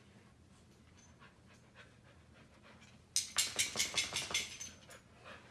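Quick, breathy panting close to the microphone, starting about three seconds in and lasting about two seconds, after a few faint ticks.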